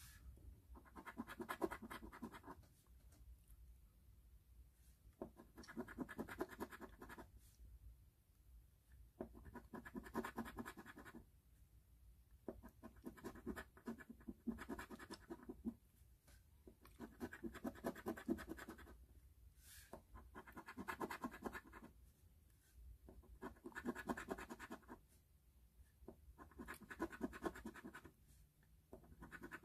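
Rapid scratching as the coating is rubbed off a lottery scratch-off ticket, uncovering the numbers. It comes in repeated bouts of one to three seconds, with short pauses every few seconds.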